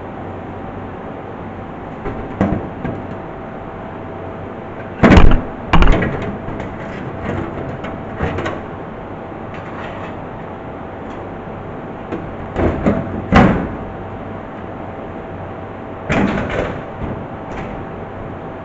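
A handful of loud, irregular knocks and clunks, some in quick pairs, over a steady background hum.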